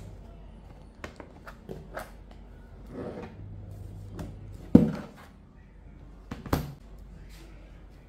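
Plastic bottom cover of an Acer Spin 1 laptop clicking into place as it is pressed down, with small clicks in the first couple of seconds. Then two louder knocks, about a second and a half apart, as the laptop is turned over and set down on a wooden desk. A low steady hum sits underneath.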